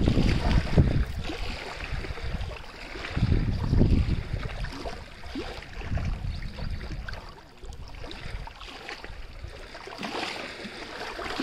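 Moving water splashing and lapping in irregular surges, louder in the first few seconds and quieter towards the middle.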